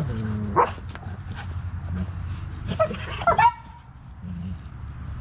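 Dogs squabbling over food: a brief sharp outburst about half a second in, then a quick run of high yelps near three seconds in. It is one dog correcting another, and the yelping dog is not hurt.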